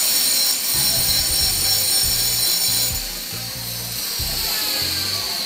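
Background music with a low bass line moving in held notes, and steady high tones above it.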